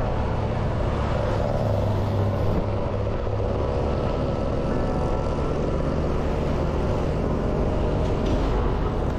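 Steady engine and road noise of a vehicle under way, heard from on board, with a continuous low rumble.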